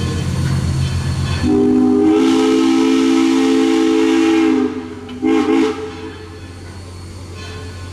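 Steam whistle of a Baldwin 2-8-0 steam locomotive blowing a chord: one long blast of about three seconds, then a short toot, over the low rumble of the moving train.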